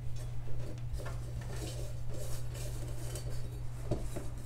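Light clinks and handling noise of a metal sink strainer body being turned and pressed on a countertop as a rope of plumber's putty is worked around its flange, with a sharper knock near the end. A steady low hum runs underneath.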